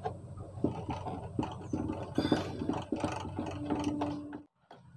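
Light clicking, scraping and rattling of metal as the brass movement of an old wall clock is handled and its mounting screws are undone. The sound cuts off suddenly shortly before the end.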